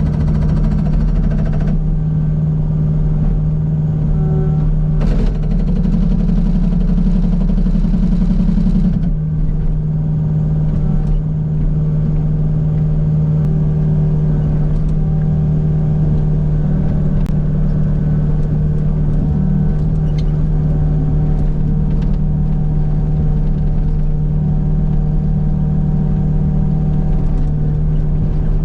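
Kubota U55 mini excavator's diesel engine running steadily under load, with a harsher, noisier stretch in the first third.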